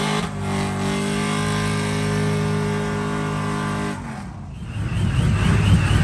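Pickup truck engine held at high revs during a burnout, a steady unchanging note. About four seconds in it gives way to a louder, rough rumble with a wavering high squeal over it.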